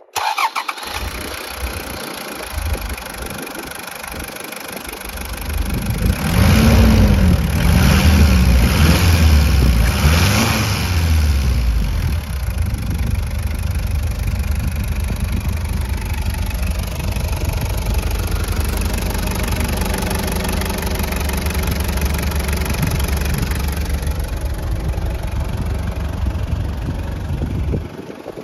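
Toyota HiAce KZH106's 1KZ-TE 3.0-litre four-cylinder turbodiesel starting and running, heard from the cab. About six seconds in it is revved up and down four times in quick succession, then settles back to a steady diesel idle.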